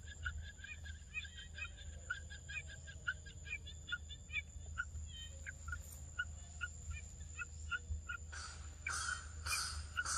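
Birds calling with many short repeated notes, a few each second, over a thin steady high-pitched insect-like whine. About eight seconds in, louder, harsher calls begin, roughly twice a second.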